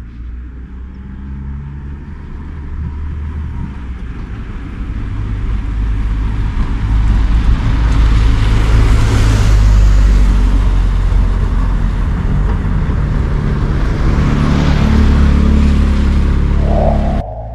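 Road vehicle noise: a heavy low engine rumble with tyre and wind noise that builds over the first several seconds, swells twice as if vehicles pass close, and cuts off suddenly near the end.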